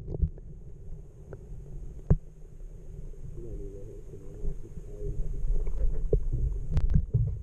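Water heard through a submerged microphone: a muffled low rumble of moving water with scattered clicks and knocks as a fish is released by hand.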